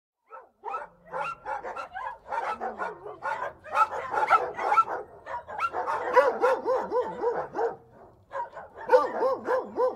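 Several dogs barking in quick succession, with a short lull a little after eight seconds before the barking resumes.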